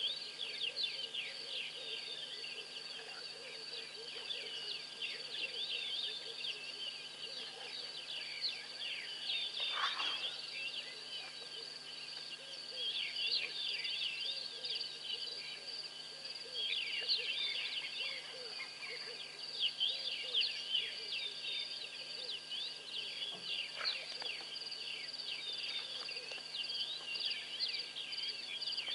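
Night insect chorus: crickets holding a steady high trill, with many short chirps layered over it. A faint steady low hum runs underneath.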